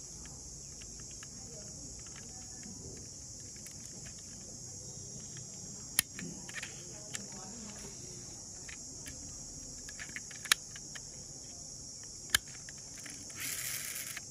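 Steady high-pitched insect chorus, like crickets, with three sharp clicks, about six, ten and a half and twelve seconds in, and a short rush of noise near the end.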